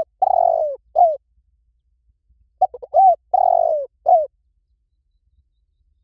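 Spotted dove cooing: the end of one phrase, a long falling coo and a short last note, then about two and a half seconds in a full phrase of a few quick short coos, a longer falling coo and a short final coo.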